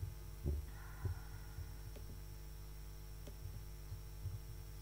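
Steady low electrical hum from a PA system, with about four soft, low thumps scattered through it.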